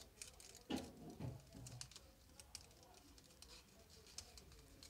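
Faint crinkling and clicking of folded colour-paper origami units being handled and slotted into one another, with a louder burst of handling noise about a second in.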